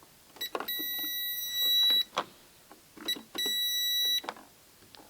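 Royal electronic cash register keys clicking, each run of presses followed by a steady high beep: a beep of about a second and a half, then a shorter one about three seconds in.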